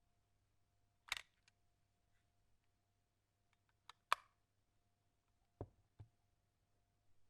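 A few isolated sharp plastic clicks and taps from a toy and its packaging being handled, with two short low thumps about two-thirds of the way through, over near silence.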